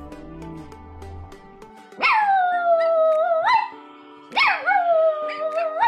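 A dog howling twice, each long howl starting high, sliding down and turning up at the end, over background music.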